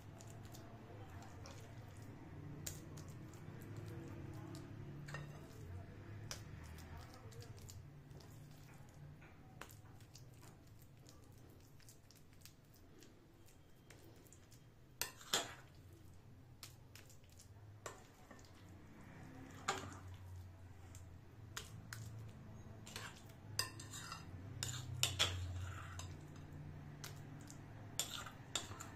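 Metal spoon clinking and scraping against glass dishes while scooping and spreading a soft raw ground-chicken mixture; faint, with a few sharper clinks scattered through.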